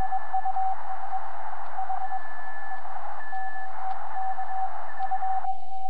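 Morse code from an amateur radio transceiver's speaker on the 30-metre band: a keyed tone of dots and dashes over receiver hiss, with a second, higher-pitched Morse signal keying alongside it. Near the end the hiss cuts off abruptly and the lower tone carries on clean.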